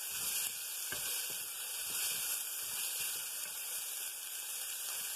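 Chopped onion, green chilli, ginger and carrot frying in ghee in an aluminium pressure cooker, a steady high sizzle. A wooden spatula stirs with a few faint knocks in the first couple of seconds.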